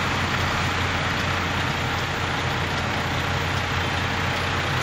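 Truck engine running steadily at idle, heard from inside the cab: an even low hum with no changes.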